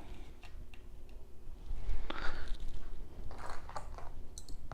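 Handling of the printer's magnetic build plate: scattered light clicks and crinkly rustles, busiest about two seconds in and again after three seconds.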